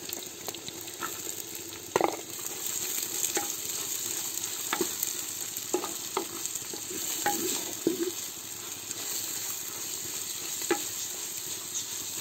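Chopped shallots sizzling steadily in hot coconut oil in a clay pot, with scattered knocks and scrapes of a wooden spatula against the pot as they are stirred.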